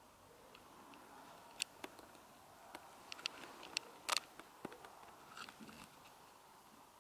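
Boots crunching on thin, frozen snow: a scatter of short, sharp, irregular crunches and clicks, the strongest a little past the middle.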